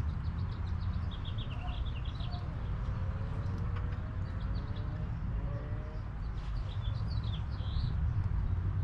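A small songbird chirping in two quick, wavering phrases, about a second in and again near the end, over a steady low rumble. Faint drawn-out calls sound in between.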